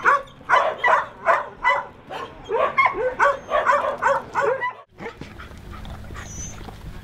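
Dog barking and yipping in quick succession, about a dozen short high barks, stopping suddenly about five seconds in and leaving a low steady rumble.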